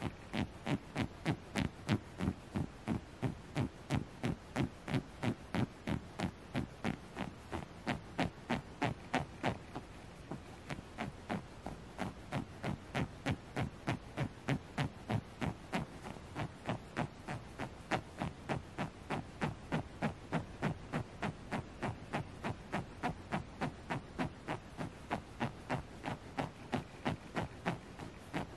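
Fingernails scratching on the soft fabric of a Squishmallow plush toy in an even rhythm, about three strokes a second.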